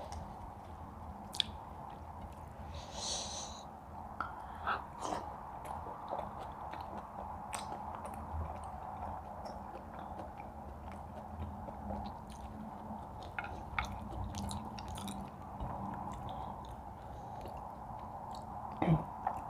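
People chewing and eating, with many small scattered biting and mouth clicks over a steady background hum.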